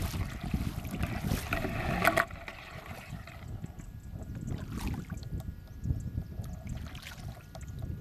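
Wind buffeting the microphone over water lapping against a kayak hull. A sharp knock comes about two seconds in, after which the noise drops to a quieter low rumble with faint ticks.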